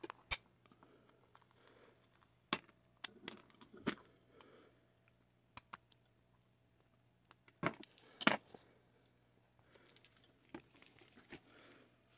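Handling noise from a disassembled butane burner's metal valve housing turned over in the hand: a scattering of sharp clicks and light knocks, with a cluster about eight seconds in.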